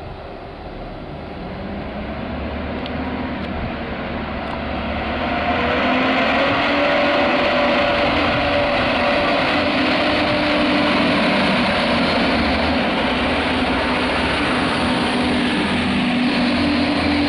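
Stadler GTW diesel railcar pulling away and passing close by. Its engines and drive grow louder over the first six seconds, then run steadily, with a humming whine that rises slightly in pitch as it gathers speed.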